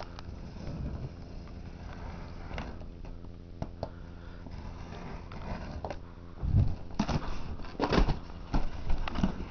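Cardboard shipping box being opened and its packing handled: scattered clicks and scrapes, then louder rustling and crinkling from about six and a half seconds in, over a steady low hum.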